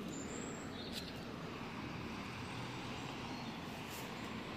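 Steady, low outdoor background hum of distant road traffic, with a couple of faint ticks about a second in and near the end.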